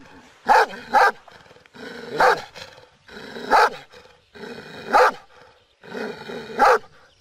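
Kangal shepherd dog barking repeatedly, about six barks spaced a second or so apart.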